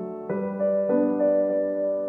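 Background piano music: a slow, gentle melody over sustained chords, with new notes struck a few times.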